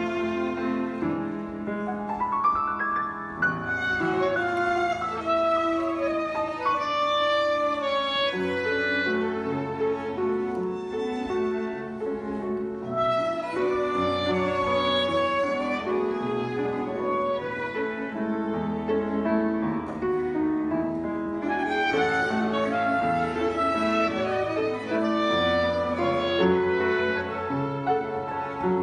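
Live chamber quartet of upright piano, cello, violin and clarinet playing a waltz together, the violin's melody over piano and cello.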